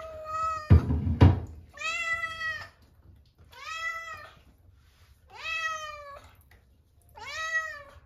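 Silver tabby cat meowing repeatedly: a string of long meows, each rising then falling in pitch, coming about every second and a half to two seconds. Two sharp knocks half a second apart about a second in are the loudest sounds.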